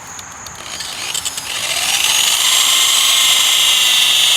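Adjustable-speed 7-inch electric buffer starting on its trigger: a few clicks, then its whine rises in pitch for about a second and holds steady and high, polishing compound on a plastic headlight lens.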